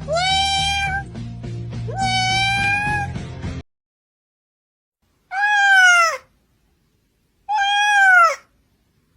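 Cat meowing: two long, fairly level meows over a low droning background, then after a pause two separate meows that fall in pitch at the end.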